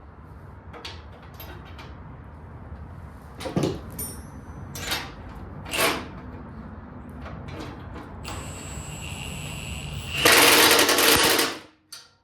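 Several sharp clinks of metal parts and tools. Then a power tool starts with a whine and runs for about three seconds, with a loud fast rattle for its last second and a half, and cuts off suddenly.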